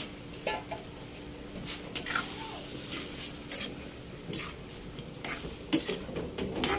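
A metal spatula stirring pork pieces in liquid in a wok, scraping and knocking against the pan at irregular moments, with one sharper clank near the end.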